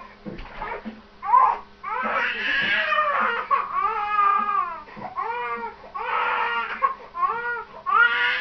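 Baby crying: a string of high-pitched wails, each rising and falling in pitch and lasting about half a second to a second, with short breaks between them.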